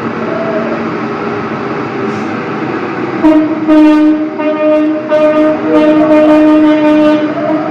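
Steady street and vehicle rumble, then about three seconds in a loud horn starts blaring on one steady pitch, held for several seconds with a few brief breaks.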